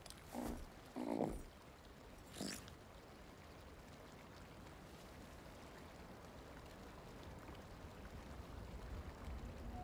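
A baby alien creature (Grogu) makes three short coos in the first few seconds. After that only a faint, steady background hum remains.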